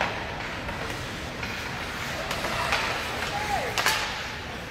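Ice hockey game in an arena: a background murmur of crowd voices with a few sharp knocks of sticks and puck, the loudest near the end.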